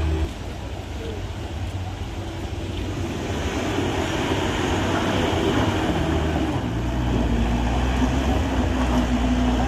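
Heavy vehicle's engine running under load on a steep climb, its low rumble growing louder about two-thirds of the way in.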